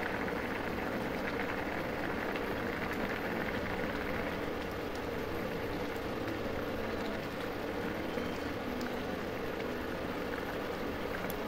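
Ridge gourd and potato curry boiling in a pan, a steady bubbling hiss of the cooking liquid.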